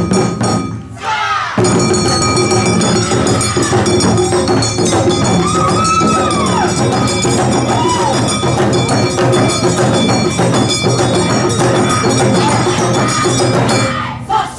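Loud, dense dance music with percussion for a stage dance performance; after a brief drop, a fuller section starts about a second and a half in.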